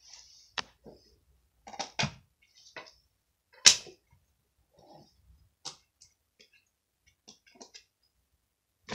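Scattered short handling sounds of slime and its plastic containers as the slimes are put into a large container, the loudest a sharp one about three and a half seconds in.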